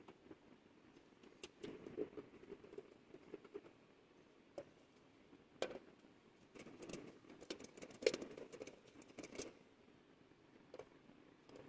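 Faint handling of a brass bowl by gloved hands: scattered light rustles and clicks, then a quick run of sharp clicks and scraping from a steel ring piece against the brass between about six and nine and a half seconds in, the loudest click near eight seconds.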